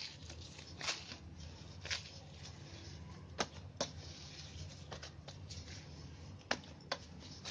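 Soft, wet rice-flour dough being kneaded by hand in a steel bowl: irregular squelching slaps and presses, about one every second, over a low steady hum.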